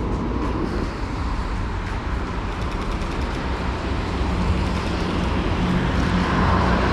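Road traffic noise, a steady wash from passing cars, with a vehicle's low engine hum growing louder over the last few seconds.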